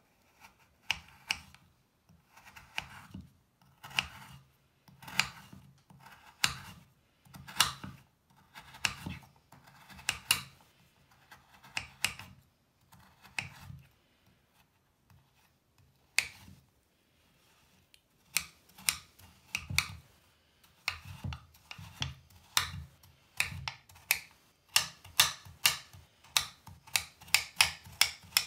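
Kitchen knife cutting through a solid bath bubble bar on a cutting board: one short gritty slicing stroke about every second, each ending in a tap of the blade on the board, with a pause about halfway. Toward the end it turns to quick chopping of the crumbled bar, about three sharp taps a second.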